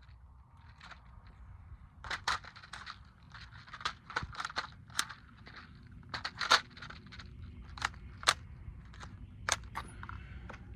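Mauser M-15 .22 LR rifle with a Warrior Systems Legionary suppressor firing single shots at an uneven pace, about a dozen sharp cracks with gaps between them.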